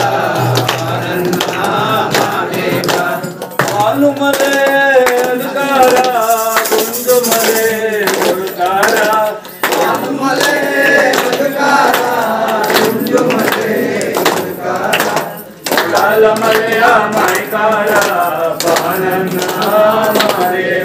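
A group of men singing a devotional bhajan, with hand clapping.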